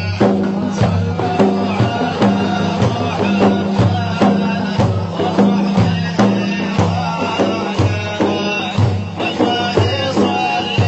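Instrumental music for a madih praise song: a steady percussion beat under a repeating low melodic line.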